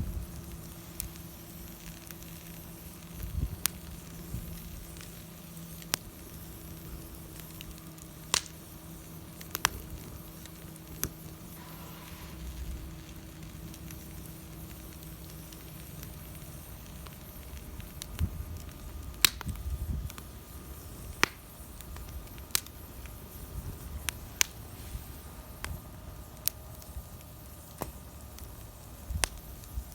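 Wood bonfire burning, with irregular sharp pops and cracks every second or few seconds over a low rumble.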